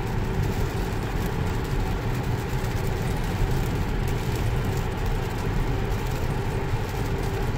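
Steady cabin noise of a Tesla electric car driving on a rain-soaked highway in a heavy rainstorm: wet tyre and road rumble with rain on the car.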